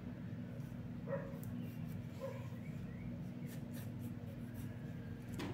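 Graphite pencil scratching on paper in short sketching strokes, over a steady low hum. Two faint short squeaky sounds come about one and two seconds in.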